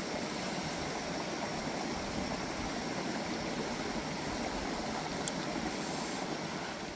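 Steady rush of flowing water, with one faint tick about five seconds in.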